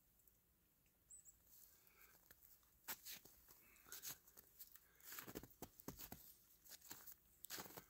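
Near silence with faint, irregular crackles and crunches, starting about a second in and coming more often after about three seconds.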